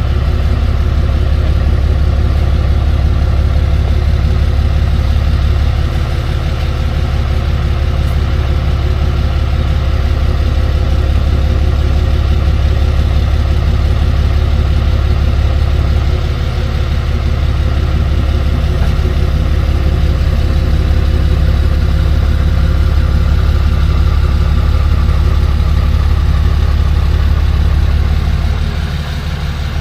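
Tow truck's engine idling steadily, with the loudness dipping briefly a few times.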